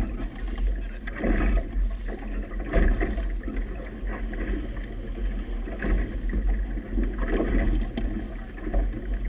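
Choppy river water slapping and splashing against a boat's hull, the splashes coming in surges about every second and a half, over a steady low rumble of wind buffeting the microphone.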